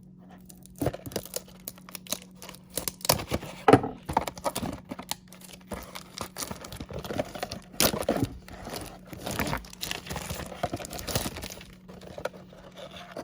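Packaging of a sports card box being torn open and crinkled by hand: a long run of irregular tearing, rustling and crackling.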